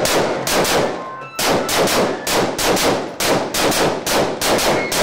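Celebratory gunfire: a rapid, loud run of single shots, about three a second, with a brief pause about half a second in before the shooting resumes.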